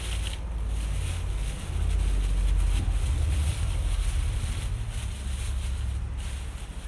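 Low, uneven rumble of wind buffeting the microphone, strongest a couple of seconds in, with a faint hiss above it.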